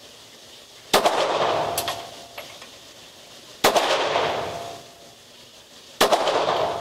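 Three shots from a Beretta 84 .380 ACP pistol, spaced about two and a half seconds apart. Each shot is a sharp crack followed by a long echo in the indoor range.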